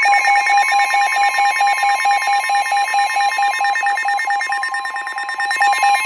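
Weather radio alert: a steady warning alarm tone under a rapid pulsing electronic beep, signalling an incoming severe thunderstorm warning.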